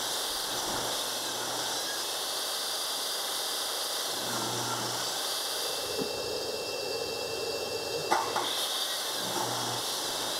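Jobsite table saw running steadily while hardwood boards are ripped, with a sharp knock about eight seconds in.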